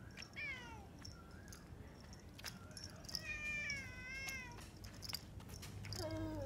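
Domestic cat meowing three times: a short falling meow about half a second in, a longer wavering meow in the middle, and another falling meow near the end.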